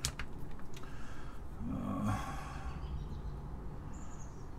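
A man's brief hum through the nose about two seconds in, over a steady low background hum, with a few faint clicks at the start.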